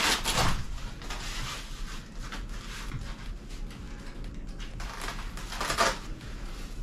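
Rustling and scraping of a carp cradle's fabric protective cover being folded back and pulled off. There is a louder rustle about half a second in and another shortly before the end.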